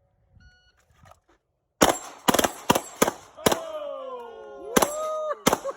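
Rapid gunfire from a competition string of fire: about eight shots at uneven spacing, starting about two seconds in. From the middle on, ringing tones glide up and down in pitch between the shots.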